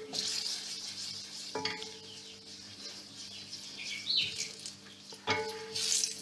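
Turmeric sizzling in hot oil in a stainless steel pot as it is stirred with a wooden spoon, a steady hiss. The spoon knocks against the pot twice, each knock ringing briefly.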